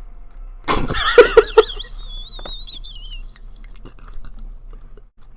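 Squeaky, slurping mouth noises close to a headset microphone from a person eating cheese. There is a loud wavering burst about a second in, then a thin high squeal that wavers and trails off, followed by faint clicks.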